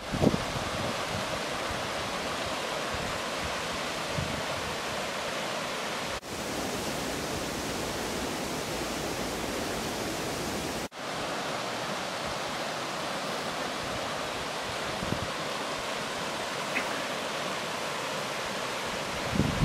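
Shallow mountain river rushing steadily over stones and boulders. It cuts out for an instant twice.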